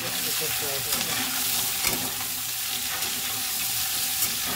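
Diced potatoes frying in ghee in a steel kadhai, a steady sizzle, while a metal spatula stirs them, scraping the pan with a couple of sharp taps against the metal.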